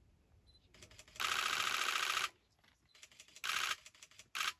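Camera shutters firing in rapid bursts of clicks: one long burst of about a second, then two short bursts in the last second or so.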